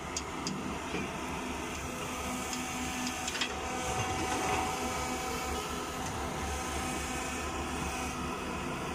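Caterpillar tracked excavator's diesel engine running steadily while the arm swings, with a few light clicks near the start and about three and a half seconds in.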